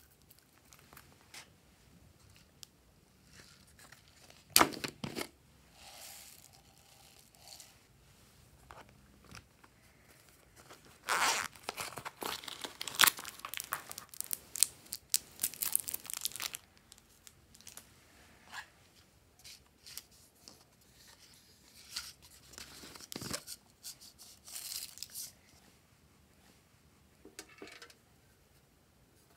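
Cellophane packaging crinkling and being torn open by hand, densest in a stretch of about five seconds near the middle, with scattered small rustles and taps around it and a sharp knock about four seconds in.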